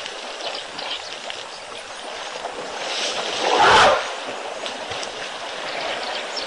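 Elephants wallowing in a mud hole: wet mud and water sloshing and splashing, with one louder splash about three and a half seconds in.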